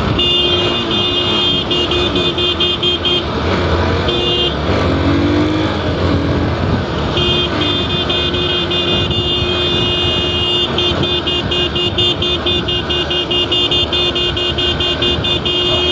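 Motorcycle horn held down: one blast of about three seconds, a short toot, then a long unbroken blast from about seven seconds in, sounded to tease the riders ahead. Under it, the engine and wind noise of the motorcycle on the move.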